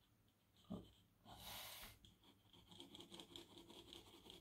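Faint pencil shading on paper: a soft graphite lead scratching in quick repeated strokes through the second half, after a brief hiss about a second and a half in.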